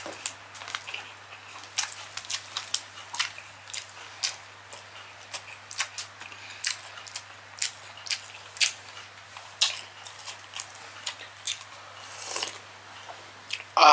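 Close-miked eating by hand: irregular wet lip smacks and chewing clicks as rice and Cajun-sauced seafood are eaten, then a longer slurp of broth from a bowl near the end.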